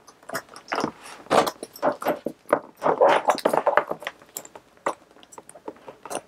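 Rustling and small clicks and clinks of a Louis Vuitton Keepall 55 duffel bag being handled and unwrapped, its protective plastic and metal strap hardware moving, busiest about a second in and again around three to four seconds in.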